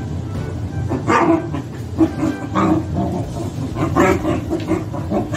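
Corgi barking in a string of short barks, several a second apart, starting about a second in.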